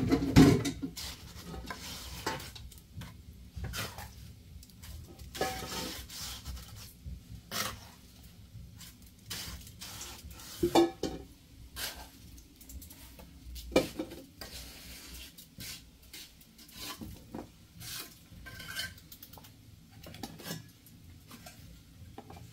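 Metal pots, pans and utensils being handled, with irregular clinks, knocks and scrapes; the loudest knock comes right at the start, with sharper clinks around the middle.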